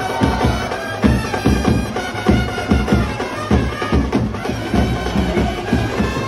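Music: a wind-instrument melody of held notes over a steady drum beat of about two strokes a second.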